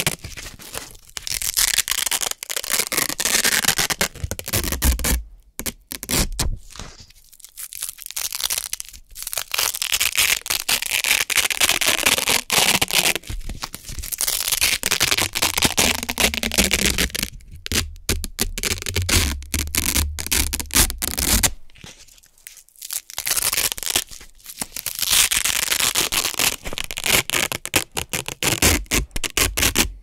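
Hook-and-loop (Velcro) circles, a black loop side and a red hook side, being peeled apart and pressed together close to the microphone: crunchy, crackling rips in long stretches with a few brief pauses between.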